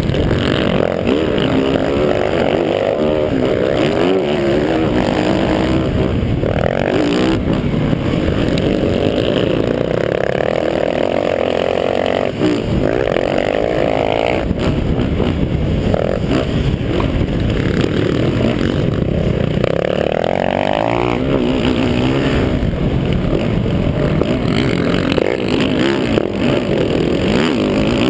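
Motocross dirt bike engine run hard during a race, its pitch climbing under throttle and dropping at each shift or lift of the throttle, over and over.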